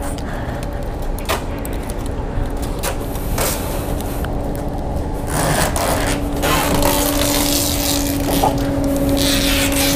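A steady engine hum over a low rumble, with scattered knocks and rustles as a plastic-wrapped cardboard box is handled on a motorcycle seat; the hum grows a little stronger partway through.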